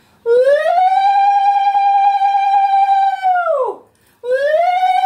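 Conch shell (shankha) blown in two long blasts: each note slides up, holds one steady pitch, and the first falls away after about three seconds.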